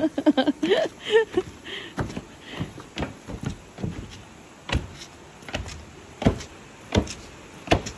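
Footsteps climbing wooden stairs and onto a wooden deck: a thump about every three-quarters of a second.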